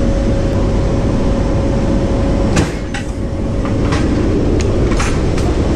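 The AC-130J's four turboprop engines droning steadily inside the cabin, with a steady mid-pitched tone running through it. From about two and a half seconds in, a string of sharp metallic clanks and knocks sounds over the drone.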